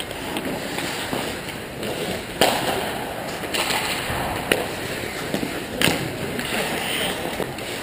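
Ice hockey skates scraping and carving on the rink ice, with three sharp clacks of sticks and puck spread through, the loudest about two and a half seconds in.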